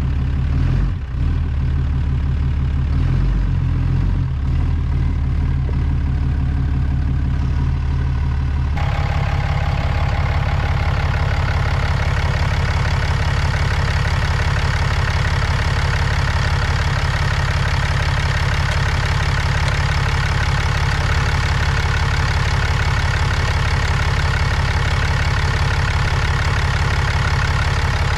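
An engine idling steadily. About nine seconds in, the sound abruptly turns harsher and brighter, with more clatter in the upper range, and stays that way.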